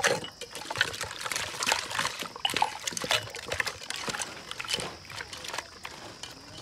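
Hands squishing and mixing raw chicken pieces with sliced onion and spices in a metal pot, marinating the chicken for biryani: irregular wet squelches and clicks, thinning out near the end.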